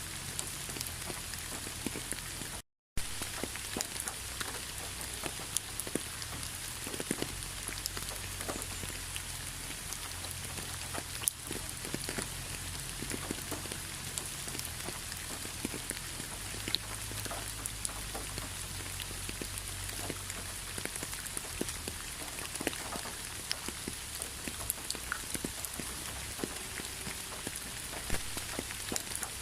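Steady rain falling, with many separate drops ticking on a surface. The sound drops out completely for a split second about three seconds in.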